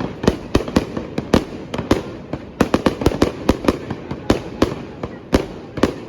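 Fireworks display: sharp bangs from exploding fireworks in rapid, irregular succession, several a second, over a continuous rumble.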